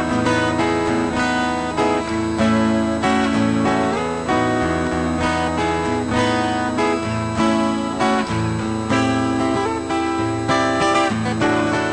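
Solo steel-string acoustic guitar playing an instrumental passage of picked and strummed chords.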